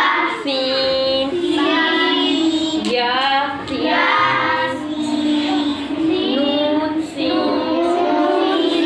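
Children's voices chanting Arabic letter names from a Qur'an reading primer in a sing-song recitation, phrase after phrase with only brief breaths between.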